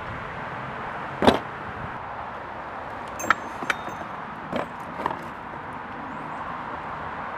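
Hitch-mount bike rack parts being handled during assembly: one loud knock about a second in, then a few lighter clicks and knocks of plastic and metal pieces, over steady outdoor background noise.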